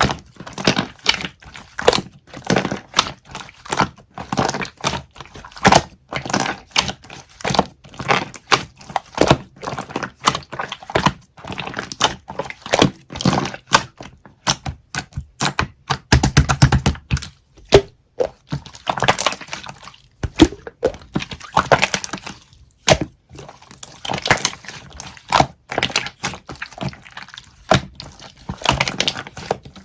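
Close-up crackling and clicking, several sharp clicks a second, as of a sticky or crunchy material being pressed and worked by hand.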